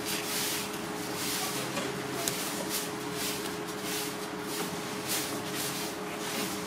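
Cleaver blade scraping and sliding along ribbon fish fillets on a plastic cutting board, in short repeated strokes about two or three a second, over a steady low hum.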